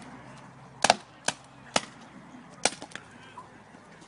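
Paintball markers firing: about five sharp pops at irregular intervals, two of them close together about a second in, a fainter one near the end.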